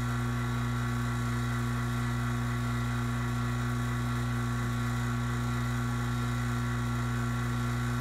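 Refrigeration vacuum pump running steadily as it pulls a deep vacuum on the manifold gauges, an even low hum that does not change.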